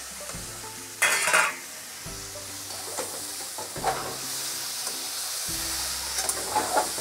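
Long metal spatula stirring and scraping fried radish pieces around a metal kadai while the oil sizzles. There is a loud scrape about a second in and lighter scrapes later. The sizzle grows stronger in the second half as the nearly dry radish stir-fry is tossed at the end of frying.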